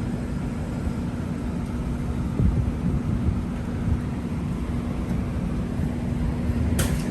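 iJooz orange juice vending machine running as it moves and juices oranges: a steady motor hum and low rumble, with a sharp click near the end.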